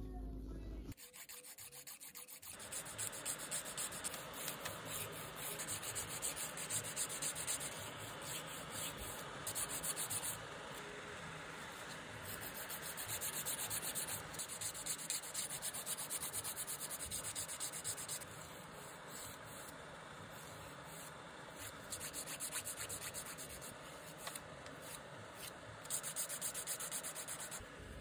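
Hand nail file rasping back and forth over fingernails in quick repeated strokes, smoothing and shaping the nail edges. The filing starts about two seconds in and eases off for a few seconds past the middle before picking up again.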